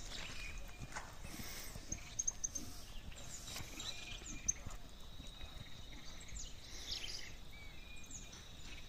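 Hoofbeats of a horse galloping away over a sandy dirt track.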